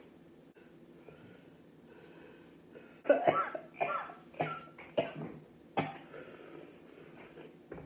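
A man's hard coughing fit, about six loud coughs in quick succession starting about three seconds in, set off by the burn of The Last Dab, a very hot chili sauce.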